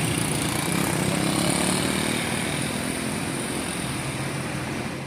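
Large bus diesel engine running under load on a steep climb, a steady low drone with road noise, easing slightly in the second half.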